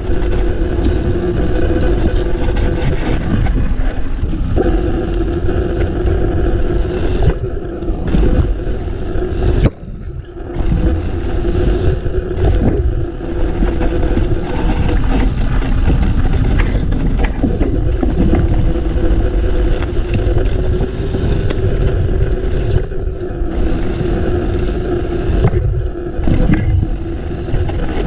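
Yeti SB4.5 mountain bike running fast down a dry dirt singletrack: wind rushing over the camera's microphone and the tyres rumbling over the dirt, with a steady mid-pitched buzz underneath. The noise dips sharply for a moment about ten seconds in.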